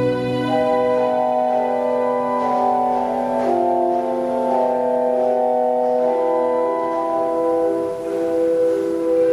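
Pipe organ playing slow, held chords, the notes changing every second or so.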